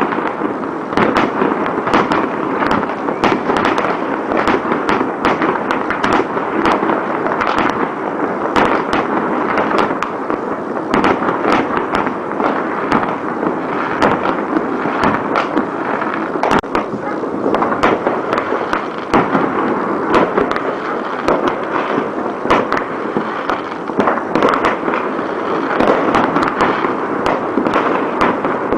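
Many fireworks and firecrackers going off at once: a dense, unbroken crackle of sharp bangs with no pause.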